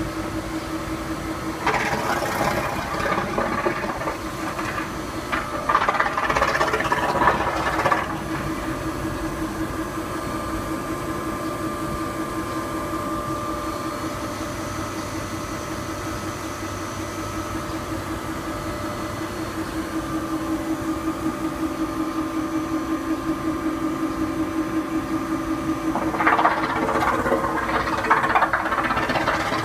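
Machinery running with a steady buzzing hum, with stretches of louder rushing hiss about two seconds in, about six seconds in, and again near the end.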